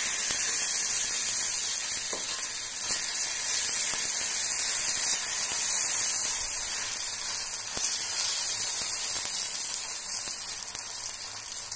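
Thick corn dosa batter sizzling steadily on a hot iron dosa griddle while it is patted out flat by hand.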